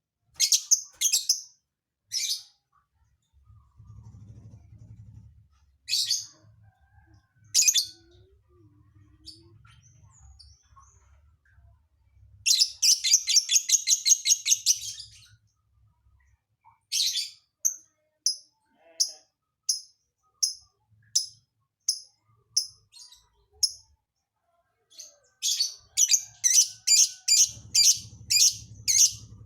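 Lovebird singing in high, short chirps. It starts with scattered single notes, breaks into a fast trill about halfway through, then gives a long run of evenly spaced chirps that gets quicker and louder near the end.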